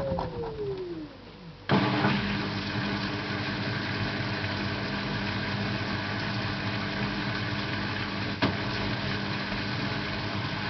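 LG 12B8ND washing machine's motor whine falling in pitch as the drum slows from spin and dies away. About a second and a half in, a steady machine hum starts abruptly and runs on, with a single sharp click near the end.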